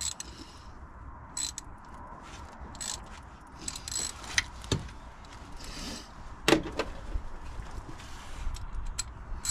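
Metal hand tools and parts clinking and knocking as they are handled: scattered sharp clicks, the loudest about six and a half seconds in.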